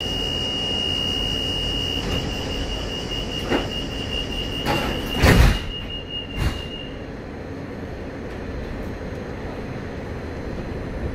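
Sliding passenger doors of an Ansaldo-Sirio tram closing, with a loud thump about five seconds in and lighter knocks just before and after. A steady high tone sounds until about seven seconds in, and then only the tram's steady low hum is left.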